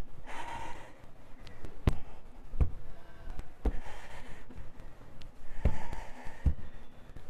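Movement noise in a small room: about five irregular knocks and taps with soft rustling in between, as from hands being set down on the floor during plank arm taps.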